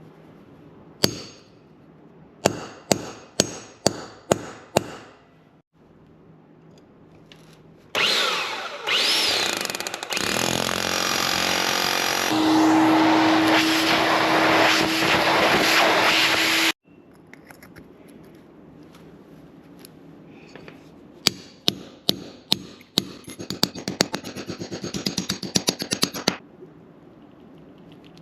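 A series of sharp knocks, then a DeWalt SDS Plus rotary hammer drilling into a concrete floor for about nine seconds, a steady tone rising out of it partway through before it cuts off. Near the end come more sharp knocks and a fast rattling clatter.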